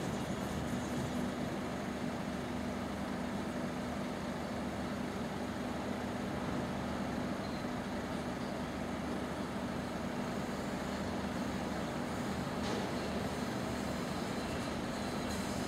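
Road vehicles idling in a queue at a closed level crossing: a steady low engine hum over general street traffic noise.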